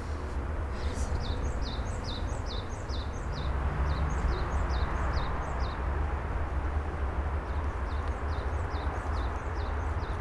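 Outdoor rural ambience: a small bird calling in runs of short, high, falling chirps, about three a second, with a pause of about two seconds in the middle. A steady low rumble runs underneath.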